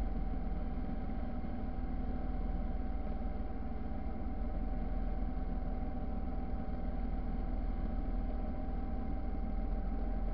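Motorcycle riding at a steady cruising speed: an even engine note with low wind rumble on the microphone, and no revving or gear changes.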